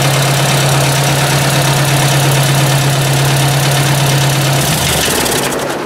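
Ford 800 tractor's four-cylinder gasoline engine idling steadily, then stopping and running down near the end.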